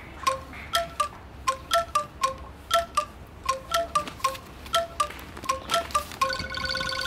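Wind chimes ringing: irregular light strikes at several pitches, about three a second, then a longer held, wavering ring near the end.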